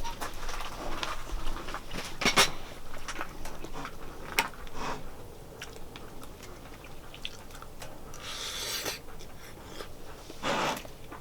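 Handling of cooking and eating utensils: scattered light clicks and knocks, with two short scraping sounds near the end.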